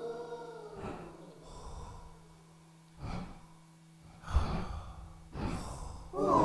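A sung note fades out, then a few slow, heavy breaths about a second apart over a faint steady hum, the loudest a sharp intake about two-thirds of the way through.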